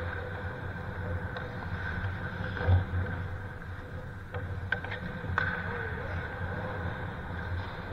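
Ice-rink sounds during pickup hockey: a steady hum with a few sharp clicks and clacks of sticks and puck on the ice, most of them between about four and five and a half seconds in, and a low thump about three seconds in.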